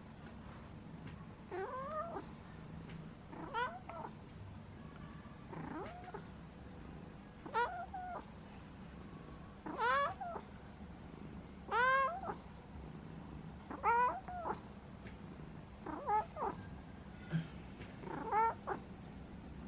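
Domestic cat meowing over and over, about one call every two seconds, each meow rising and then falling in pitch.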